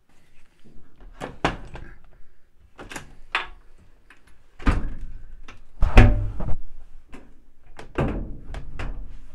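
A string of knocks and hollow thunks from plastic washing-machine parts, the tub ring and the top panel with its glass lid, being handled and fitted onto the cabinet. The two heaviest thumps come about five and six seconds in, with lighter clicks near the end.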